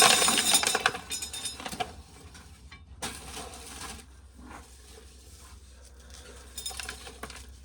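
Dried corn kernels being shelled off a small ear, clattering and pattering into a bucket: a loud rattle in the first second, then scattered lighter clicks of kernels dropping.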